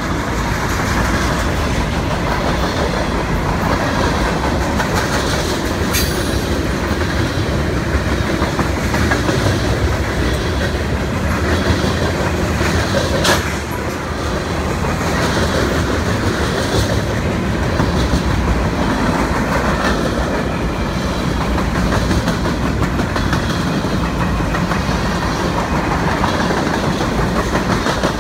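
Freight cars of a long CSX mixed freight train rolling past close by: a steady loud noise of steel wheels on the rails, with two sharp clanks about six and thirteen seconds in.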